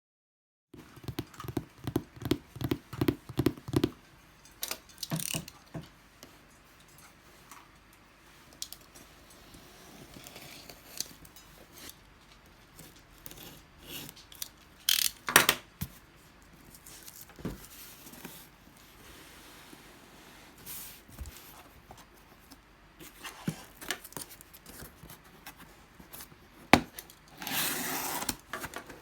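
Unpacking a boxed fire pit by hand: a quick run of knocks at the start, then scattered scrapes, clicks and knocks, one sharp loud knock about halfway, and about a second of packaging tearing or rustling near the end.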